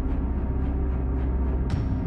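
Background music: a low, steady drone under a quick, even ticking pulse, shifting a little near the end.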